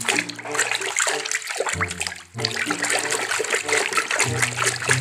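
Water splashing and sloshing as a hand stirs and grabs in a tub of water, with a short break a little past two seconds in.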